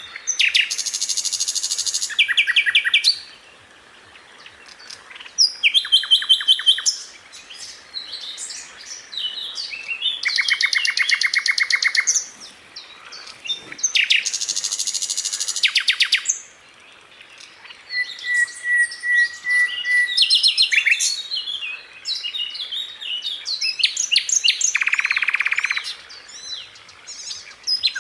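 Sikatan londo flycatcher singing: fast rattling rolls of rapidly repeated notes, each lasting one to two seconds, alternating with scratchy, varied squeaks and chirps, and one short held whistle-like note partway through.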